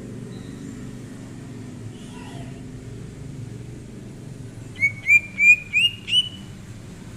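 Cucak ijo (green leafbird) singing a short phrase of five quick rising whistled notes, each pitched a little higher than the last, about two-thirds of the way in. A steady low rumble runs underneath.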